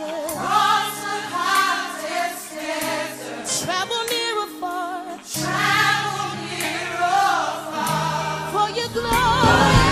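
Gospel choir singing with accompaniment; the music grows louder, with a deeper bass, about nine seconds in.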